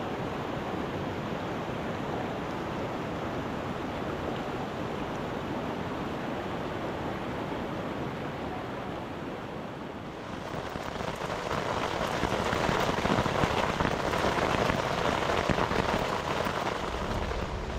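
Whitewater mountain creek rushing over boulders. About ten seconds in it gives way to a louder, denser patter of rain on a tent.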